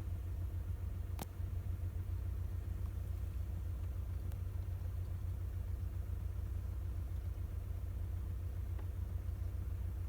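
Car running, a steady low rumble, with a sharp click about a second in.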